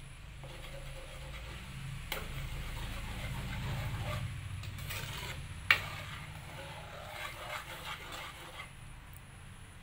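A metal ladle stirring beaten egg into a thick curry in a pan on the stove, over a low steady hum. A sharp clink, the loudest sound, comes about six seconds in.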